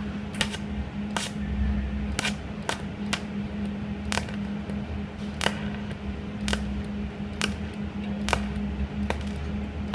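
Inverter welding machine TIG welding with argon: a steady electrical hum and low buzz, with sharp ticks at irregular intervals about once a second.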